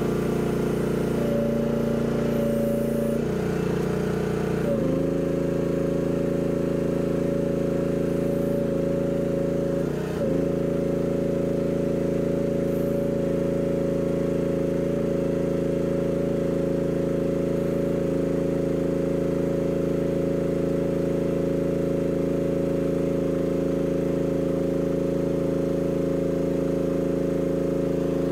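Mini excavator's engine running steadily at a constant speed. The pitch shifts slightly about five seconds in, with a brief dip about ten seconds in.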